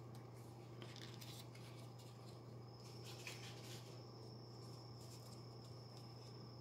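Faint rustling and light clicks of folded paper units being pushed together while assembling a 3D origami piece, a few soft rustles about a second in and again around three seconds in, over a steady low hum.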